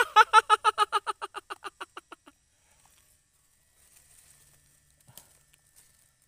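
A man laughing in a high-pitched giggle, a quick run of about nine 'hee' pulses a second that fades out over about two seconds. After it come faint rustles and a light tap in dry leaf litter.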